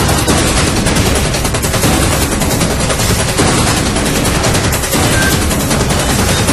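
Loud suspense music score built on a fast, dense rattling percussion that runs without a break.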